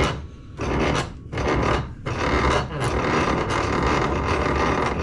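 Rasping, scraping rubs as the compressor's stuck intake air filter is clamped in a bench vise and worked loose: a few short strokes in the first two seconds, then a longer steady scrape.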